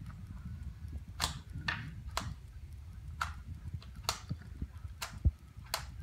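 Plastic Rubik's Cube layers clicking as they are turned by bare toes on a tile floor: about seven sharp clicks at uneven intervals, with a low thump about five seconds in that is the loudest sound.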